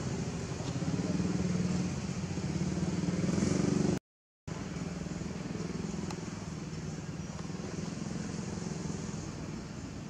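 A steady engine hum, as of a motor vehicle running, which cuts out completely for about half a second about four seconds in.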